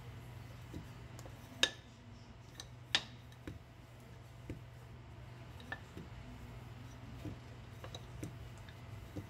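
Hands with long fingernails pressing and stretching a thin sheet of dough on a plastic-covered table, giving scattered light clicks and taps; the two sharpest come about a second and a half and three seconds in.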